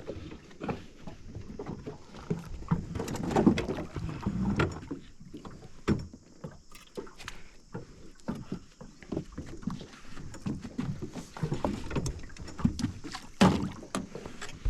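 Irregular knocks, bumps and clatter in a small aluminium boat as a fish is netted and brought aboard.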